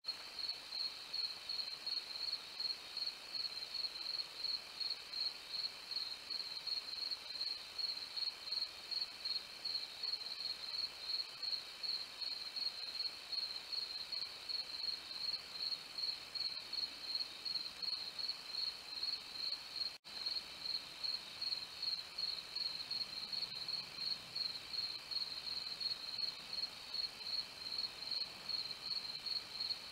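Crickets chirping in a steady high-pitched rhythm, about three chirps a second, with a momentary dropout of all sound about two-thirds of the way through.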